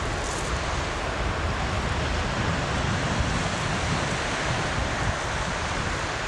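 Small waves breaking and washing up a shingle beach, a steady surf hiss, with wind rumbling on the microphone.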